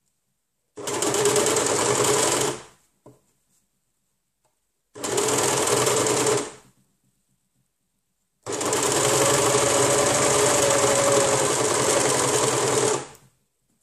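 Overlock machine (serger) stitching a side seam in three runs: about two seconds, then a second and a half, then a longer run of about four and a half seconds, each starting and stopping abruptly with short silent pauses between.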